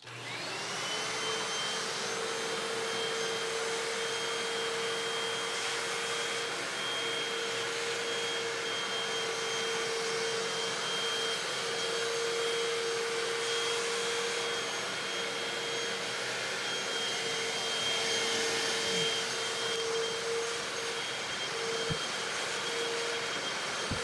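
Hoover PowerDash FH41000 hard floor cleaner switched on, its motor spinning up within the first second to a steady whine over a rushing hiss. It then runs steadily as it washes and sucks up the dirty water from the tile.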